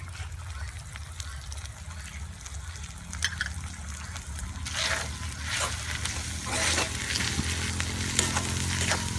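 Onions, ginger-garlic paste and freshly added ground spices frying in oil in a steel karahi, with a metal spatula scraping the pan as they are stirred; the scraping strokes come thick from about halfway through. A steady low hum runs underneath.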